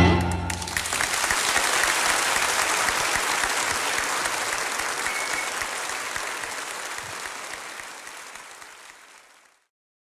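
Concert audience applauding at the end of a live song, the clapping gradually fading out and cutting off about nine and a half seconds in.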